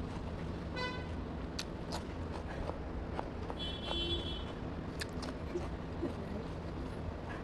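Steady rumble of road traffic, with a short vehicle horn toot about a second in and another, higher horn tone around four seconds in. A few sharp crunchy clicks of raw cucumber and tomato being bitten and chewed.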